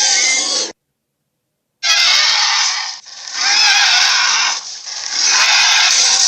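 Gorilla roar sound effect: harsh, noisy roars. One roar cuts off in the first second, and after a second of dead silence three more follow back to back, the last still going at the end.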